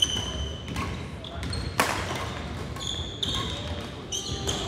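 Badminton rackets striking the shuttlecock in a fast doubles rally, a string of sharp hits with the loudest about two seconds in, mixed with short squeaks of court shoes on a hardwood floor.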